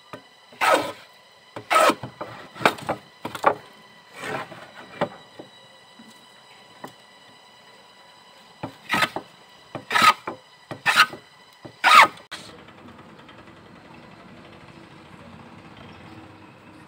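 Metal hand plane shaving a pine block: short rasping strokes about one a second, five in a row, then after a pause of a few seconds four more. Near the end only a faint steady background noise remains.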